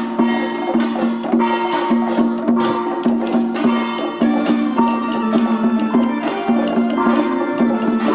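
Music: sustained melodic notes over a steady beat of percussion strikes, a little under two a second.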